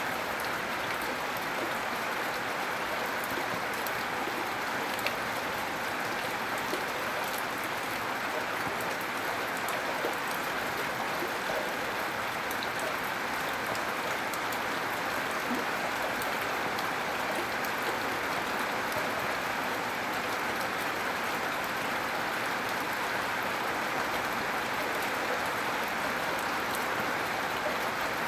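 Steady, gentle rain falling, an even hiss with scattered small drop ticks.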